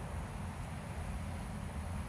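Outdoor background noise: a low, fluttering rumble of wind on the microphone, with a thin, steady high-pitched hiss above it.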